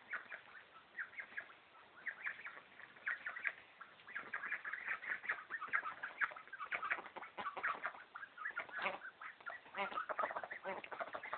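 A group of young Indian Runner ducks, about eight weeks old, calling: a busy run of short, high-pitched calls that comes thicker from about four seconds in.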